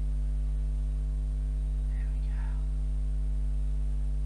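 Steady low electrical mains hum with a ladder of higher overtones, constant in level, with a brief faint sound about two seconds in.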